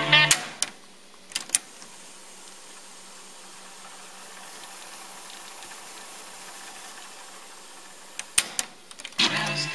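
Sansui SC-1110 cassette deck: music playback cuts off with the clunk of a piano-key transport button, a few more key clicks follow, then the transport runs with a steady whir as the tape winds at high speed. Near the end two more key clicks sound and music playback starts again.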